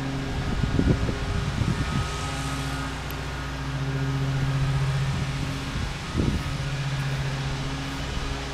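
A steady mechanical hum with a low droning tone, swelling a little around the middle, like a motor or engine running nearby. A few short low bumps come about a second in and again about six seconds in.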